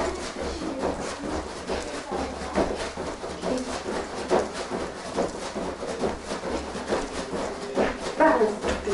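Bare feet landing again and again on a folding foam gym mat during jumping jacks, a steady rhythm of soft thumps about two a second.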